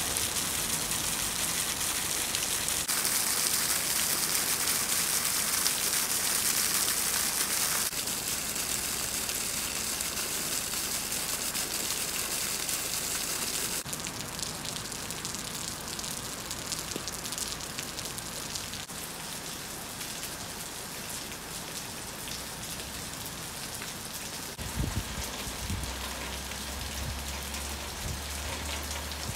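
Steady rain falling and splashing on pavement and buildings, a dense hiss that shifts in level abruptly a few times. A low rumble comes in near the end.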